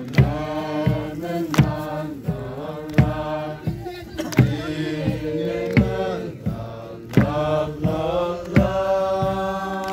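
Group of young men singing a Liangmai gospel song together, several voices holding long, sliding notes. Sharp clap-like beats keep a steady rhythm, a strong one about every second and a half.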